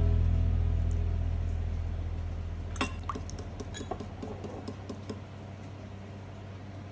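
A metal wire whisk taps and clinks against a glass bowl as it beats egg yolks with milk. The clinks come in a quick, uneven run for about two seconds from near the middle. Background acoustic guitar music fades out over the first two seconds.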